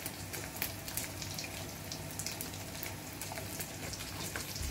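Small dried sap-sap fish frying in a pan of hot oil: a steady sizzle with scattered crackling pops, over the low hum of a kitchen exhaust fan.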